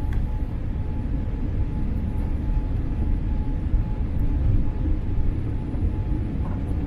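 Cabin noise of a Boeing 787-8 airliner on its landing roll: a steady low rumble.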